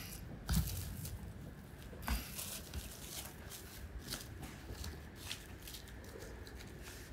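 Plastic cling film crinkling and rustling in the hands as a pork-wrapped rice ball is wrapped and squeezed tight. Two soft knocks come about half a second and two seconds in.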